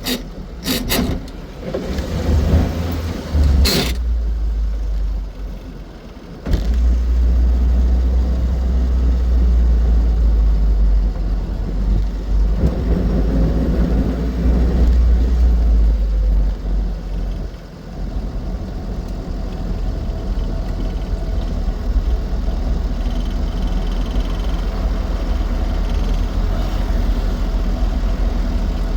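Austin 7 Ruby's small four-cylinder side-valve engine running on the road with a steady low rumble of engine and road noise. A few sharp clicks come in the first four seconds, and the rumble drops away briefly about six seconds in and again just before eighteen seconds.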